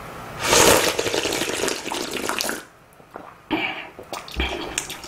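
A person slurping ramen broth straight from the rim of a large bowl for about two seconds, then, after a short pause, slurping noodles in short bursts near the end.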